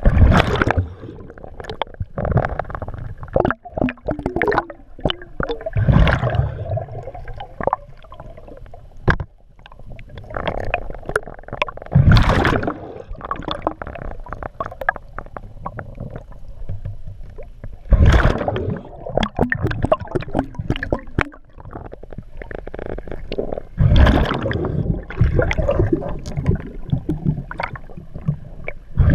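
Scuba diver breathing through a regulator underwater: a loud gurgling rush of exhaled bubbles about every six seconds, with scattered clicks and softer bubbling in between, heard through an underwater camera housing.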